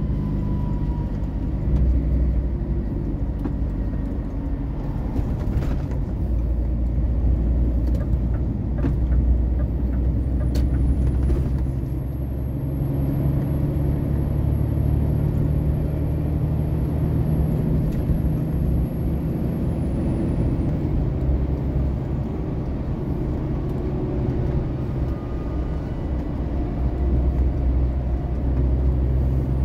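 Engine drone and tyre noise heard from inside the cab of a vehicle cruising on a multi-lane highway: a steady low rumble, with a faint high-pitched whine through the middle.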